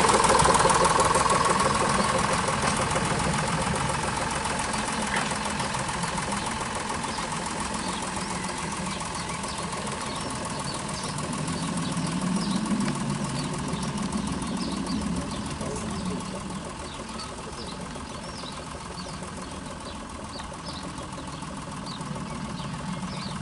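The diesel engine of a 1930s steam-outline diesel-hydraulic narrow-gauge locomotive running as the locomotive moves away, steadily fading, with a brief swell about halfway through.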